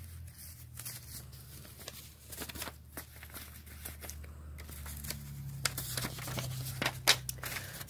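Folded sheets of lined notebook paper being unfolded and handled: scattered rustles and crinkles, growing more frequent and a little louder in the second half, over a low steady hum.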